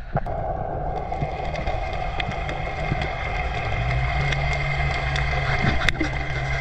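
Muffled underwater noise as heard by a camera beneath the sea: a steady low rumble and hiss, with a steady low hum joining about four seconds in and a couple of sharp clicks near the end.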